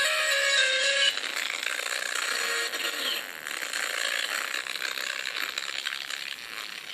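Small alarm-clock speaker overdriven on purpose to blow it, sounding out a harsh distorted buzz. For about the first second it holds a steady buzzing tone. Then it drops in level and turns into a raspy crackling rattle as the cone is driven past its limits.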